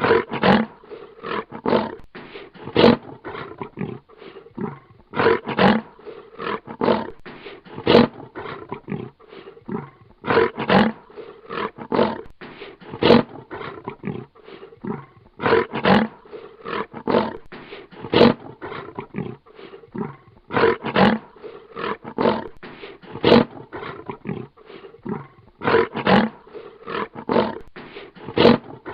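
Lion growling in repeated bouts, one about every two and a half seconds, each bout a run of many short pulses.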